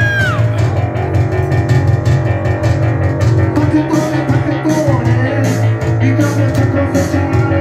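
Live electronic punk band playing loud: a heavy synth bass line and a steady electronic beat under keyboard synth parts, with a high synth tone sliding down right at the start.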